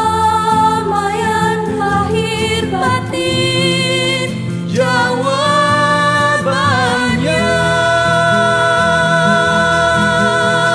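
A song: female voices singing a slow, drawn-out vocal line over instrumental accompaniment, ending on one long held note near the end.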